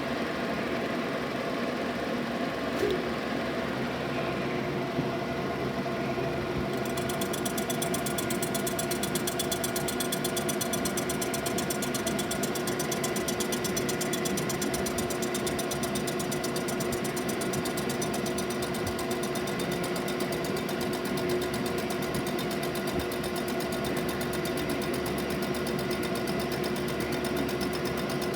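DeVlieg milling machine running steadily, a continuous machine hum with several whining tones, as it machines a Chrysler exhaust manifold. About seven seconds in, a fine, fast rattle joins and continues.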